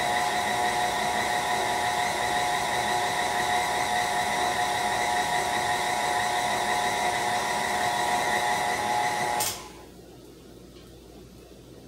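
KitchenAid stand mixer motor running at a steady, high whine while stirring cake batter, then switched off with a click about nine and a half seconds in, the whine cutting out abruptly.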